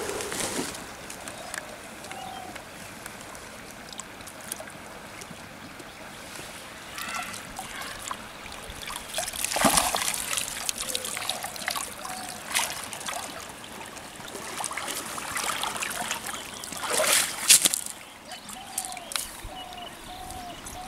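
A cast net being hauled out of shallow pond water: splashing, with water running and dripping from the wet mesh. There are two louder rushes of splashing, about halfway through and again near the end.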